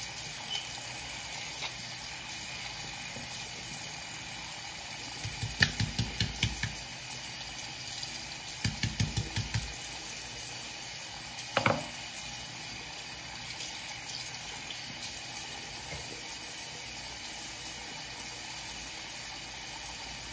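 Water running steadily from a tap while hair is being wet. Twice a short run of quick rhythmic rubbing or scrubbing strokes breaks through, and a single sharp knock comes a little before the middle.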